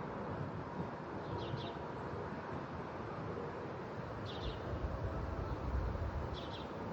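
Wind buffeting the microphone, with a small bird giving a short high chirp three times, a couple of seconds apart.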